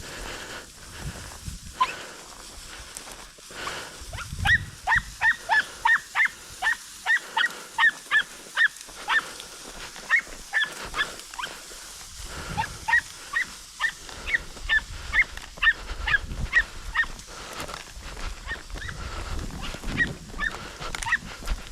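Podenco hunting hound giving tongue in quick runs of short, high yelps, about three a second, with pauses between the runs: the hound is baying on a rabbit's trail.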